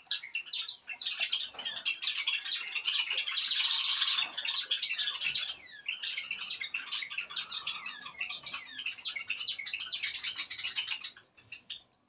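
A flock of small cage birds chirping and twittering together, a dense chorus of quick rising and falling calls, at its thickest around three to four seconds in. It fades out about a second before the end.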